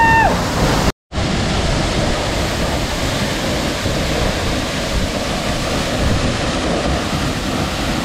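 Waterfall plunging onto rock, a steady rushing of water with no change in pitch, broken by a short total dropout about a second in.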